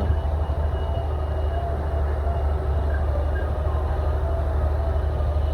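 Heavy diesel machinery running steadily: a deep, continuous rumble with a faint wavering whine above it.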